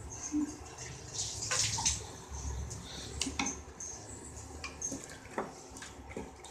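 Thin tamarind gravy bubbling and simmering in a pan on a gas stove, with scattered light clicks and taps throughout.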